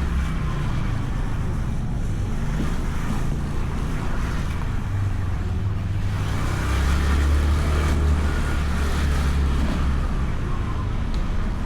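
Wind rumbling on a bike-mounted action camera's microphone over a Honda Beat scooter's engine and road noise while riding. The rumble swells about seven seconds in.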